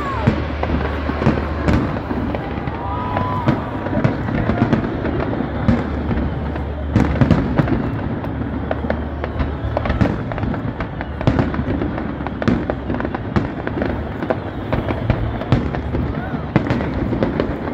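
Aerial firework shells bursting in a steady display, sharp bangs coming about once a second.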